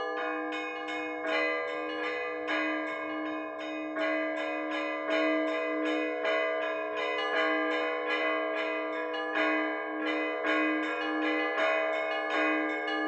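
Orthodox church bells rung in a continuous peal (zvon): small bells struck in a quick rhythmic pattern over a deeper bell that keeps pulsing, with louder accents about once a second.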